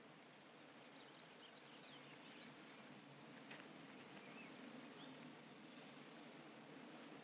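Near silence: faint outdoor background hiss with a few faint, short bird chirps, and a faint, fast, high-pitched ticking from about four seconds in.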